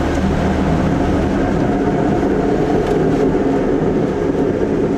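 Ultravan motorhome under way, its Corvair flat-six running steadily with a metallic grinding from the front wheels that sounds like metal-to-metal brakes. The grinding is the edge of a front brake drum rubbing on a backing plate that was hammered out for suspension clearance.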